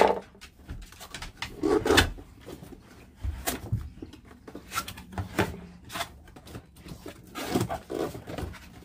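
A cardboard box being opened by hand: tape and flaps tearing and scraping, with packaging rustling and scattered knocks. Two brief low voice-like sounds come about two seconds in and near the end.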